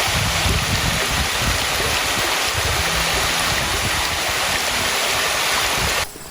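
Creek water rushing: a steady, loud rush of water that begins abruptly and cuts off suddenly near the end.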